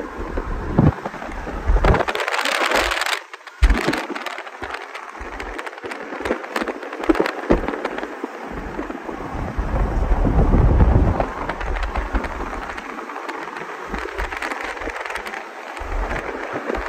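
Wind buffeting the microphone at a moving car's window, with deep gusty rumbles and crackling over steady road and tyre noise. Strong gusts come about two seconds in and again around ten seconds.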